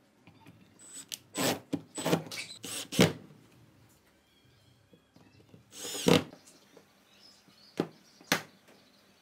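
Sharp knocks and clicks of a steel toggle clamp being worked by hand and wooden boards being handled on a workbench: a quick run of knocks in the first three seconds, a louder thunk about six seconds in, and two short clicks near the end.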